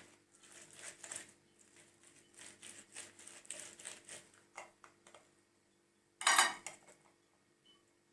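Kitchen utensils and dishes being handled: a run of light, irregular clinks and scrapes, then one louder clatter about six seconds in.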